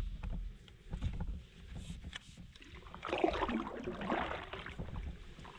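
A stand-up paddle blade stroking through lake water, a swirling splash about three seconds in, with small drips and knocks around it over a low rumble.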